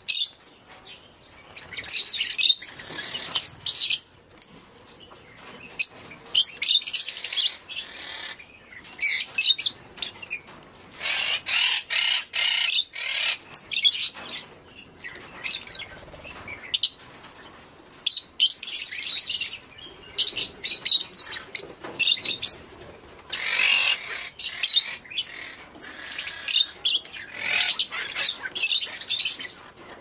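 Lovebirds chirping and chattering in shrill bursts of a second or two, with short lulls between, through the whole stretch.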